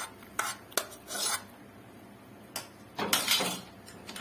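A spoon tapping and scraping against a pan as fried cashews are pushed off it into thick halwa: a few sharp taps, then short scrapes, the longest about three seconds in.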